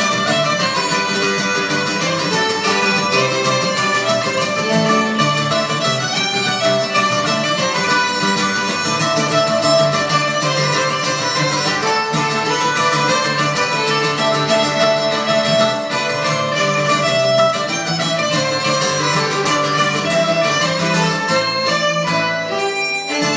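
Irish traditional band playing a fling live, a fiddle carrying the tune over banjo and other plucked strings. The music breaks off just before the end as the tune finishes.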